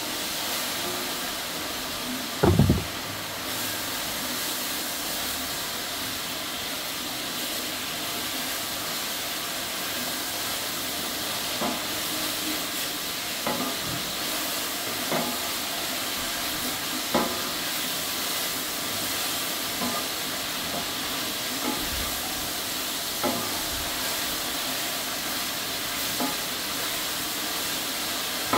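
Sliced onions cooking in oil in a large aluminium pot, giving a steady sizzling hiss. A wooden spatula stirs them and knocks against the pot, loudly once about two seconds in and then lightly every couple of seconds in the second half.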